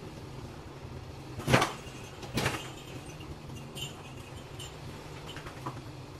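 Two loud bangs about a second apart, like objects being knocked or set down while things are moved around in a metal-building garage, with a few faint clicks after and a steady low hum underneath.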